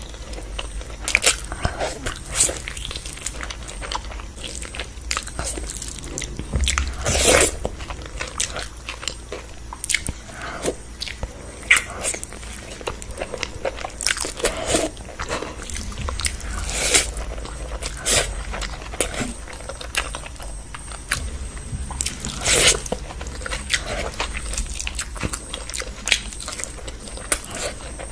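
Close-miked eating sounds: wet chewing and lip smacking as someone eats mutton curry and rice with her hands, with irregular sharp mouth clicks and a few louder smacks.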